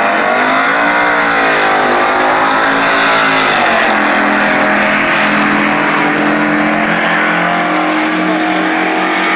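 Race car engine running hard down a drag strip, its pitch climbing and dipping in the first few seconds, then holding a steady high note.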